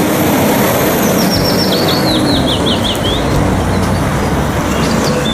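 A semi-trailer gas tanker truck driving by, its engine and tyres making a steady rushing noise. Birds chirp over it, and from about a second in one gives a quick run of falling notes for roughly two seconds.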